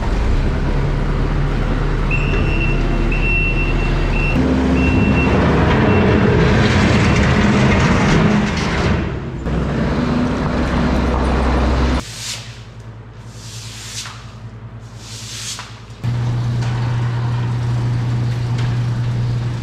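Kubota compact track loader's diesel engine running, climbing in pitch about four seconds in, with a run of short high beeps near the start. About twelve seconds in the engine drops away and three rushing hisses follow, then the engine is heard running steadily again.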